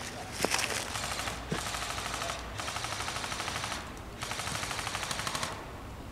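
Airsoft rifle firing on full auto: three bursts of about a second each, a fast, even stream of shots, after a few single sharp clicks.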